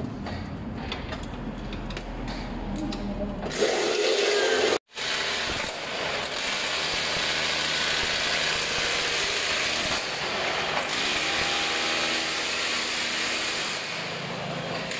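Tool work on an aluminium door frame: scraping and clicking at first, then, after a short break, a steady power-tool noise that runs for about ten seconds.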